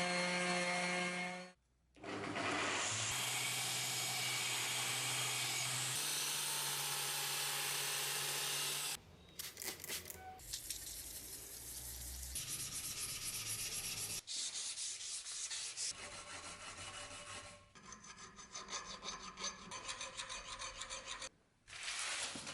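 A steel axe head being sanded and filed, in short edited clips. For the first several seconds there is a steady motor-driven sanding noise. After that come uneven, rasping hand strokes of filing and sanding.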